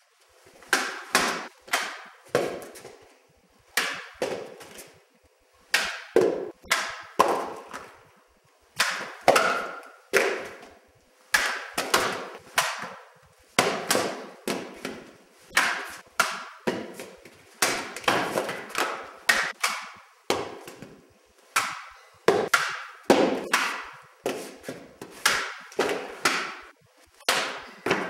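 A quick run of sharp struck knocks, one or two a second and often in pairs, each ringing out briefly.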